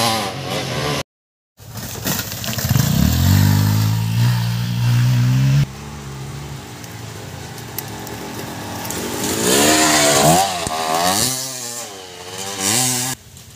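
Dirt bike engines revving on a motocross track: a buzzy rev climbs and is held for a few seconds, then cuts off sharply. Near the end the revs swing up and down several times. About a second in there is a brief half-second dropout.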